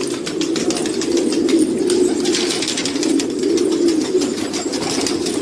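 Many domestic pigeons cooing together in a continuous low burble, with frequent quick clicks and taps over it.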